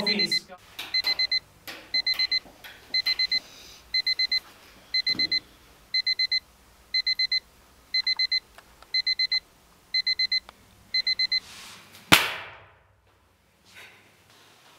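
Digital alarm beeping in quick groups of four, about once a second, stopping about eleven seconds in. Near the end comes a single sharp bang with a short fading rush after it.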